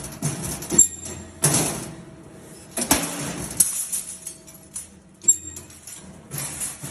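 2D CNC wire bending machine at work: irregular clicks and metallic knocks with short bursts of hiss, over a steady low hum.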